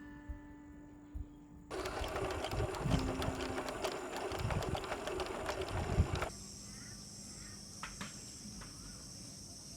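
The last held note of acoustic guitar music, then a loud stretch of rough noise with low thumps that cuts in and out abruptly. After it, insects trill steadily, with a few faint bird chirps.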